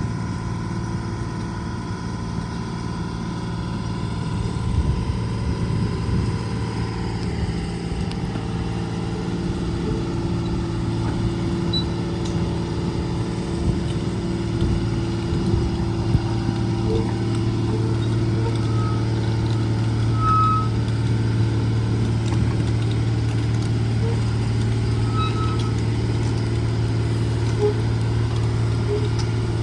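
Diesel engine of a Case 125B tracked excavator running steadily as the machine creeps forward in low gear, growing gradually louder as it comes closer.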